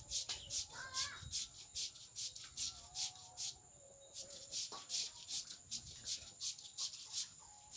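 An insect chirping rhythmically in high-pitched pulses, about four a second, with a short break near the middle. Chickens cluck faintly underneath.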